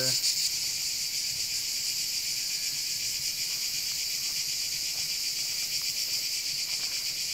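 Cicadas buzzing in a dense, steady chorus: a high-pitched shrill drone with a fast pulsing texture.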